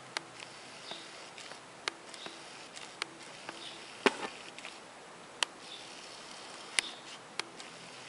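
Camera and tin-box handling noise: scattered sharp clicks and light taps at irregular intervals over a faint steady hiss, with faint short whirrs between them.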